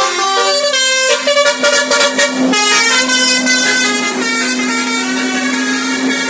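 Tour bus's basuri musical air horn playing a quick melody of changing notes over a steady held low tone, with a short noisy blast about two and a half seconds in.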